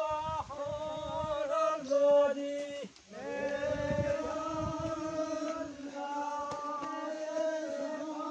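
A voice singing a chant in long, held, slightly wavering notes, breaking off briefly about three seconds in before carrying on.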